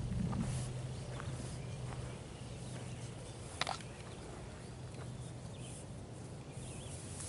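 Horses shuffling and pulling at hay, with a few sharp clicks, the clearest about halfway through. A low steady hum is heard over the first couple of seconds.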